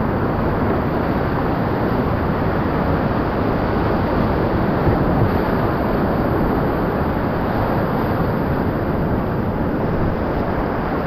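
Whitewater rapids of the Tallulah River at a high 700 cfs release, a loud, steady rush of churning water close around a kayak running through them.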